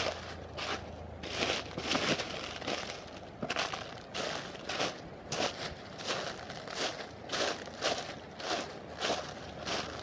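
Footsteps crunching through dry fallen leaves at a steady walking pace, about two steps a second.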